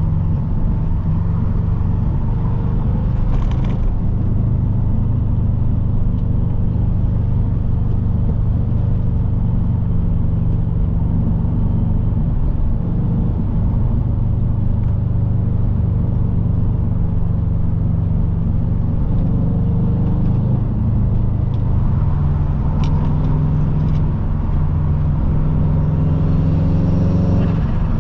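Subaru WRX's turbocharged EJ20 flat-four engine and road noise heard from inside the moving car with the windows open. The engine note holds steady, wavers briefly around the middle, steps up in pitch about two-thirds of the way through and drops back near the end.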